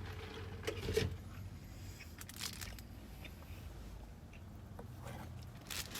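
Faint eating sounds, with chewing and a few soft clicks and crunches from handling the chicken skewers, over a low steady hum.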